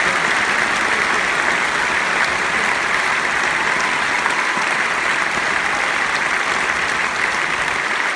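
Large arena audience applauding, a dense, steady wash of clapping that eases slightly toward the end.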